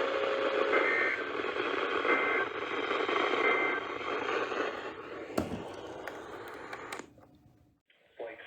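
Three short EAS end-of-message data bursts, two-tone warbles about a second apart, heard faintly through the hiss of a weak, distant radio signal. A click follows, and the hiss fades out near the end.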